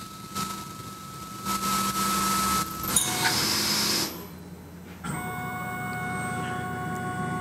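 Tormach PCNC 1100 CNC mill drilling holes in an aluminum block. The cutting noise swells in two stretches, drops off about four seconds in as the drill withdraws, and from about a second later the spindle keeps up a steady whine of several tones.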